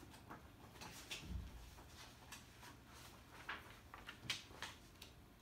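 Quiet classroom room tone with faint, scattered rustles and small knocks of students handling books and paper, and a soft low thump about a second in.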